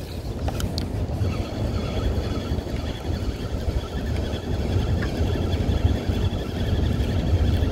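A small boat's motor running steadily, a low rumble with a faint even whine above it.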